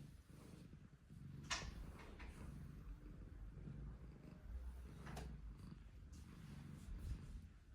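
A sleeping Persian cat snoring softly: a low rumble with each breath, about once a second, with two brief sharper snuffly noises partway through.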